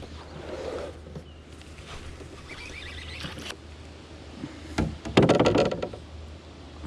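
A loud clatter of knocks and rattles on the canoe's hull about five seconds in, over a steady low hum.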